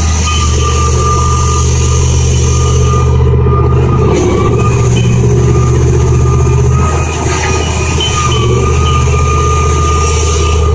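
Cat 6060 hydraulic mining shovel running, its twin Caterpillar 3512C diesel engines droning steadily under a thin, steady high whine.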